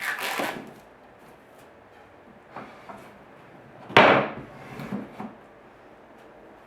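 Wooden porch swing parts being unpacked and handled. There is a scrape at the start, a loud knock about four seconds in, and a couple of smaller knocks just after.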